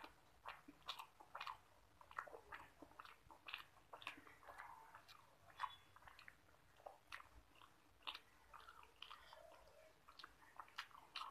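Faint, wet eating sounds: fingers squishing rice into egg curry and mouth chewing, with many short, irregular clicks and smacks.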